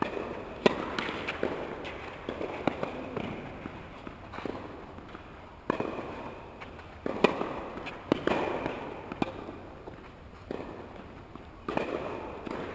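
Tennis ball struck by rackets and bouncing on a hard indoor court. A serve is hit near the start, and then more hits and bounces follow about every second, each a sharp pop with a hall echo.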